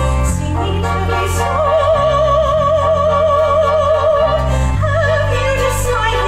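A woman singing in an operatic style, holding one long note with a wide vibrato for about three seconds before moving to a new phrase, over sustained instrumental accompaniment.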